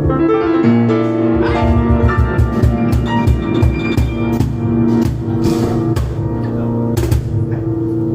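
Live piano and cajón duo playing instrumental music: piano notes and chords over a steady, driving percussion beat.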